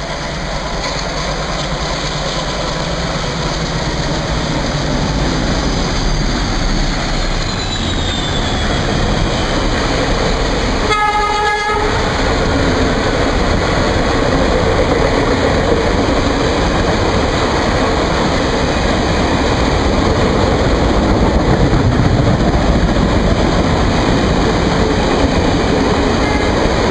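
ALCO WDM3D diesel locomotive passing at speed in heavy rain, with a high whine falling in pitch as it goes by and a short horn blast about eleven seconds in. Then the express coaches roll past steadily, growing louder, over the hiss of the downpour.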